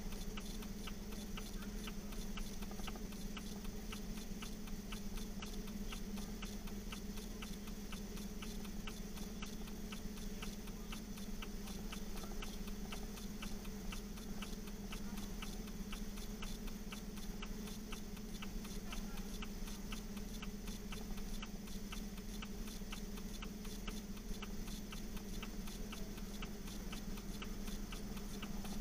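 Fire apparatus engine running steadily: a low hum with a fast, even ticking over it.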